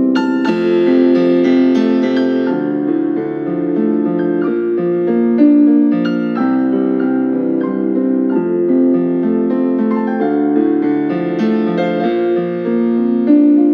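Solo piano music accompanying a ballet class exercise, moving through sustained chords.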